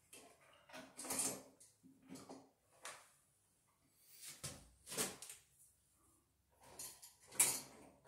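Handling sounds from working the wires of a multiple switch box with pliers: a series of short scrapes and clicks of metal tool and stiff copper wire, about one a second, the loudest near the end.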